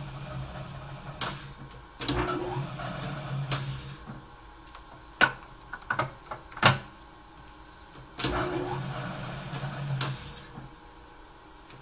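1953 LeBlond Dual Drive lathe being shifted by hand. Twice the motor is bumped on with a clunk and hums for about two seconds before stopping, and sharp metallic clicks and clunks come in between from the gear levers, as the gears are worked into mesh.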